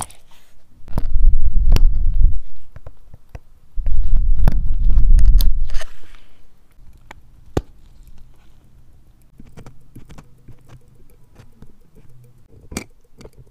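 Close-up handling noise from gloved fingers and small steel tools working on a steel wristwatch and its bracelet. There are two stretches of loud low rubbing rumble with clicks in them, then scattered small metallic clicks and taps.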